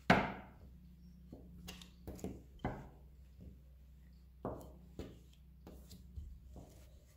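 Wooden rolling pin knocking on a cloth-covered table as dough is rolled out: one sharp, loud knock at the start, then fainter knocks and thuds every second or so.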